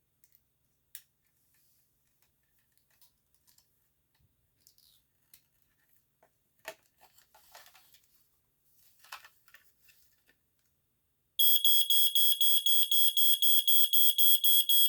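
Faint clicks and handling, then about eleven seconds in a Smokey Stover 4002 smoke alarm goes off on a fresh battery: a high-pitched beep pulsing about five times a second, really quiet for a smoke alarm.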